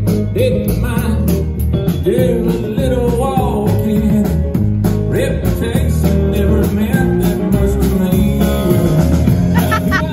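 Live band playing: drum kit keeping a steady beat, guitars and a singer.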